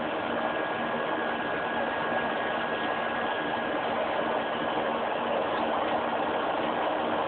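Steady cabin noise of a Boeing 737 climbing after takeoff, heard inside the cabin: engine noise and rushing airflow as an even hiss, with a few faint constant hums underneath.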